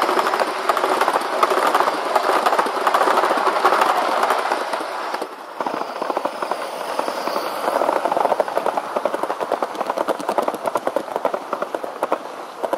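Large-scale model train rolling past close by, its wheels making a rapid, continuous clatter over the rail joints. The clatter dips briefly about five seconds in, then carries on.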